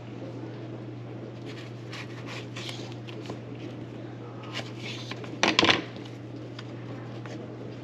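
Kitchen utensil sounds: short scrapes and clicks of a knife and utensils against a cutting board and dishes, with one louder clatter about five and a half seconds in. A steady low hum runs underneath.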